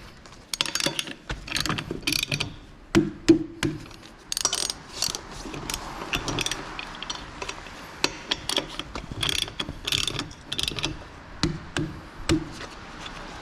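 Hand socket ratchet wrench clicking in short, irregular strokes as bolts are run in during brake and wheel reassembly.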